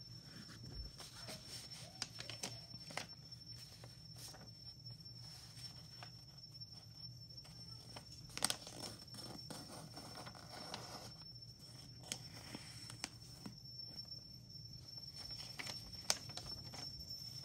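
A sheet of paper being folded and its creases pressed flat by hand: intermittent rustles and a few sharp crisp crackles, the loudest about eight and a half seconds in and again near the end, over a steady low hum and a faint high whine.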